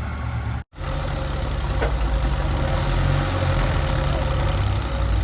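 Heavy diesel engine of a JCB 3DX backhoe loader running steadily at low revs. The audio cuts out completely for an instant less than a second in, then the engine resumes.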